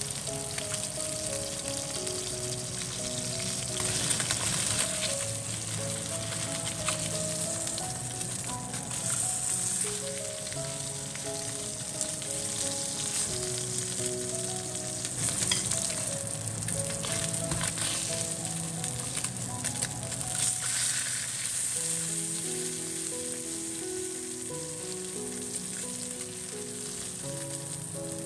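Salmon fillets sizzling as they fry skin-side down in hot oil in a wok, the skin crisping, with a few brief scrapes as a metal slotted spatula lifts and turns them. A simple background melody plays over it.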